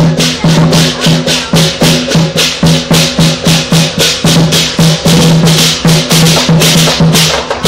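Southern lion dance percussion: a big drum and clashing cymbals beating a fast, loud, steady rhythm of about three strokes a second.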